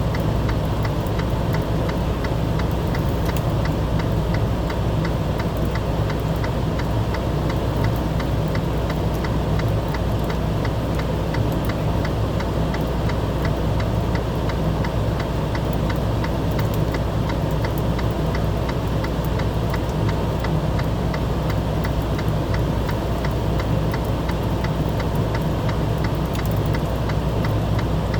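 A vehicle engine running steadily with a low, even hum, and a fast, even ticking over it.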